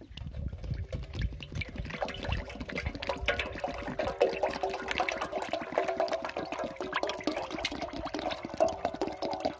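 Starter oil pouring from a plastic bottle into the metal oil tank of a submersible pump starter, splashing and gurgling steadily as the tank is refilled.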